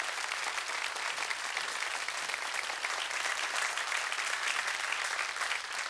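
Studio audience applauding, many people clapping at once, steady throughout.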